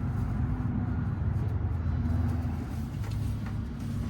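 An engine idling steadily: an even, low hum.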